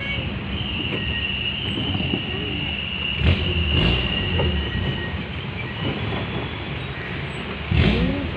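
Off-road vehicle rattling along a rough track, with a steady low rumble and a high squeal held for several seconds. Three hard knocks from jolts come about three and four seconds in and near the end.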